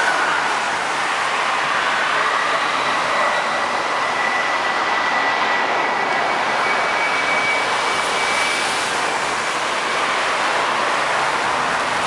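Steady hiss of road traffic driving past on a wet road, with a faint high whine that comes and goes partway through.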